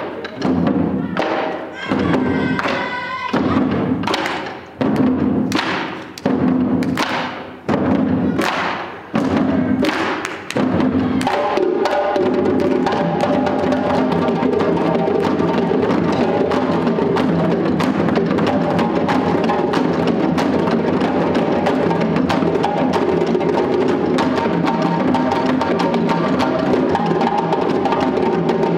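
West African drum ensemble of djembes and tall standing barrel drums. For about the first eleven seconds it plays single strikes together, roughly one every second and a half, each ringing out and fading. Then it breaks into continuous, dense drumming.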